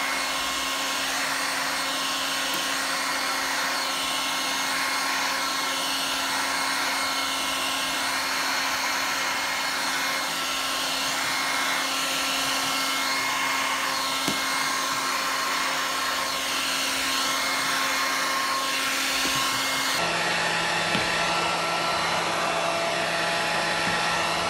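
Makita electric heat gun running steadily, blowing hot air onto thick paint-protection film to shrink and form it onto a windscreen. Its steady hiss carries a hum that drops in pitch abruptly about twenty seconds in.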